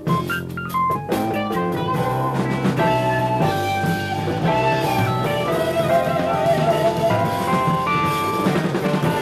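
Jazz-rock fusion band playing live: electric guitar lines over electric bass, drum kit and keyboards. About halfway through, one held note wavers in pitch with vibrato.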